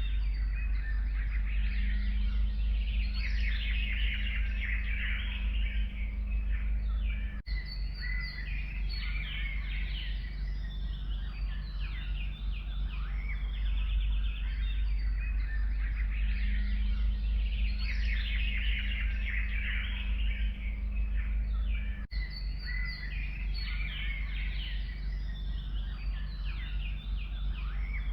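A chorus of several forest birds singing, with overlapping chirps and trills, over a steady low rumble. The sound dips briefly twice, about 7 and 22 seconds in.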